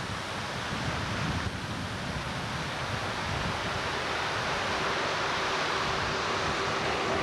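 Floodwater of a creek in spate rushing past in a steady, even roar. A faint steady hum joins in about halfway through.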